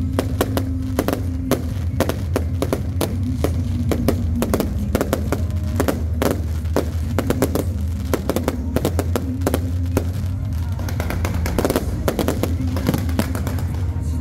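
Fireworks display: a dense, irregular run of bangs and crackles, several a second, from shells and fountains bursting overhead, over steady background music.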